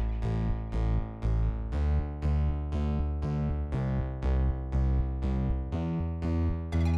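Background music: electronic keyboard chords struck about twice a second over a steady bass line.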